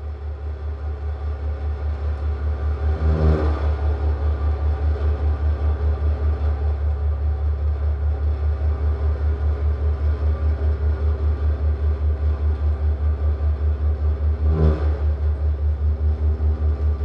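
Low electronic drone throbbing at about four pulses a second from amplified objects and electronics, fading in over the first few seconds. Two brief, brighter swells break in, about three seconds in and again near the end.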